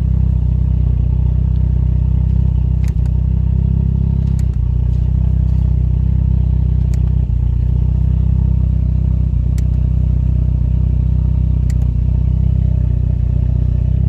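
Toyota 3S-GTE turbocharged inline-four idling steadily, on its first start after two years standing. A few light clicks sound over it.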